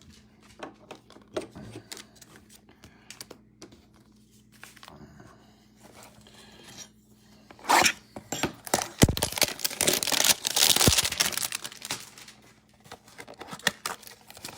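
Trading-card pack wrappers being torn open and crinkled, with small clicks and taps of cards being handled. The tearing and rustling is loudest in the second half, starting with a sharp rip about two thirds of the way in.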